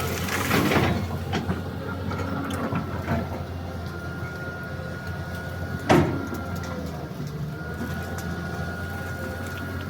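Excavator's diesel engine running steadily, with a short burst of noise near the start and one sharp knock about six seconds in, the loudest sound.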